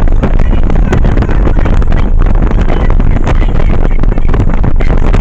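Yamaha 1100's engine running under way, with heavy wind buffeting on the microphone.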